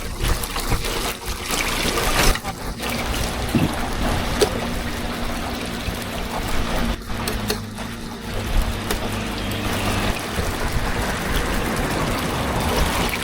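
Buns deep-frying in a vat of hot oil, a steady crackling sizzle with a few sharp clicks.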